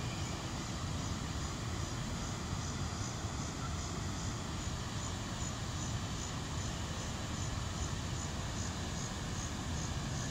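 Steady rushing roar of water pouring over a low-head dam's spillway, an unbroken noise heaviest in the low rumble.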